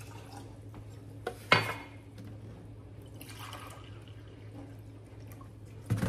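White vinegar being poured into a stainless steel saucepan, splashing and trickling, with one sharp clink about a second and a half in.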